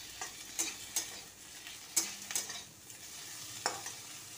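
A spatula stirring and scraping sliced onions and tomatoes around a metal kadhai, with a few sharp scrapes against the pan at irregular intervals over a faint steady sizzle of frying.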